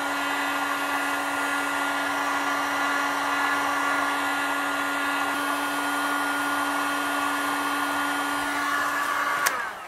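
Handheld heat gun running steadily: a rush of blown air with a steady motor hum, which stops near the end.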